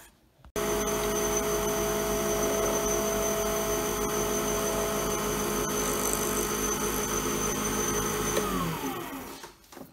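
Small lathe motor running steadily with a turning tool cutting a spinning Alumilite resin pen blank, a steady hum with a hiss; it starts abruptly about half a second in, and near the end the motor is switched off and spins down with a falling pitch.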